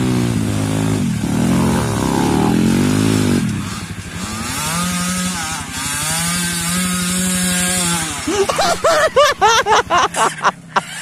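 Dirt bike engines revving on a steep muddy trail, the pitch rising and falling, then holding steady for a few seconds. From about eight seconds in comes a quick run of sharp throttle blips, about three a second.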